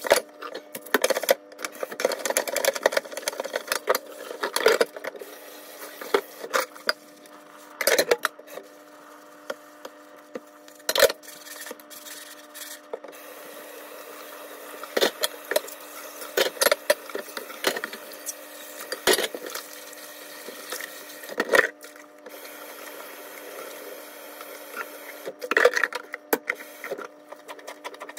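Dishes being washed by hand in a kitchen sink: irregular clinks and knocks of dishes and utensils against each other and the sink, over running tap water.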